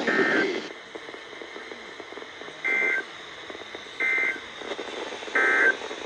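Weather alert radio beeping its alert for a received tornado warning: four short, high two-tone beeps spaced about a second and a half apart, over a low hiss.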